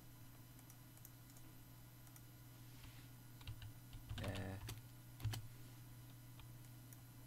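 A few scattered computer keyboard taps and mouse clicks over a faint steady low hum. A brief pitched sound comes a little past the middle.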